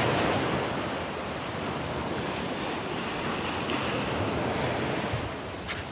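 Sea waves washing on the shore, with wind on the microphone; the wash is loudest at the start and eases off.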